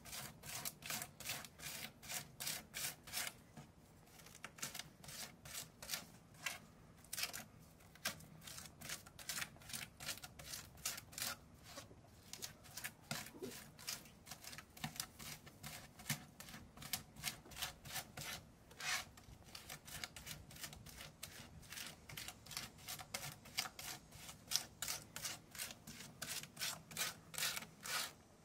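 Chef's knife chopping and scraping garlic cloves with salt on a plastic cutting board, working them into a puree. Quick repeated strokes, about four a second, with brief pauses twice.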